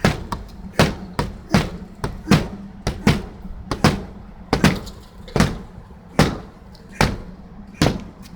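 Roofing work hammer blows struck at a steady pace, about eleven sharp strikes roughly 0.8 s apart, over a steady low hum.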